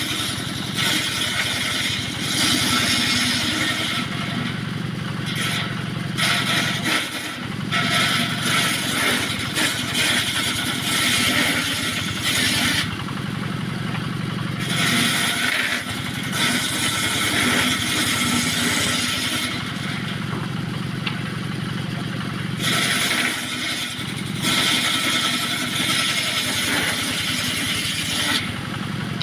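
Engine-driven circular saw rig running steadily while ripping small teak offcuts into battens. A hissing cutting noise rises for several seconds at a time over the engine's hum, as each piece is fed through the blade.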